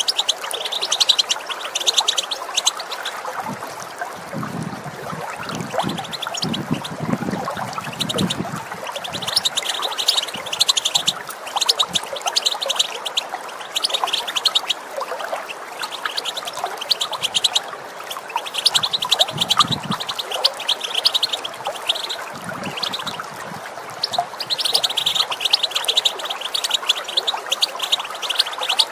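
European goldfinches twittering in repeated bursts of fast, high chattering calls, over the steady sound of running water with gurgles now and then.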